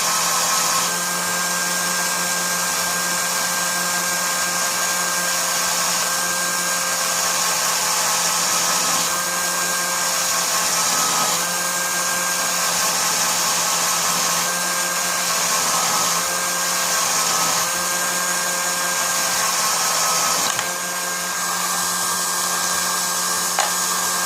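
Cordless-drill motor and gearbox of a home-made mini lathe spinning a small lock pin, running at a steady speed with a constant whine and whir; the pitch and level shift slightly now and then.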